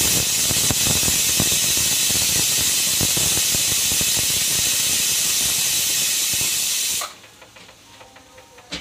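Aluminium stovetop pressure cooker whistling: steam jets out under the lifted weight valve in a loud, steady hiss, a sign that full pressure has been reached. It cuts off suddenly about seven seconds in as the weight settles back.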